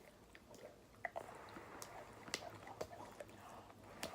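A dog's wet mouth sounds up close: irregular small licking clicks and smacks.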